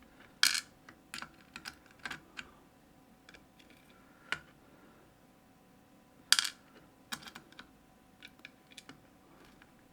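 Scattered light clicks and taps of small lock parts and tools being handled as key pins are taken out of a Mottura CP6 lock, with two sharper clicks about half a second in and about six seconds in.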